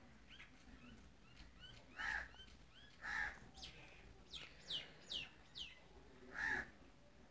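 Birds calling: a run of quick, short falling chirps, with three louder, harsher calls about two, three and six and a half seconds in.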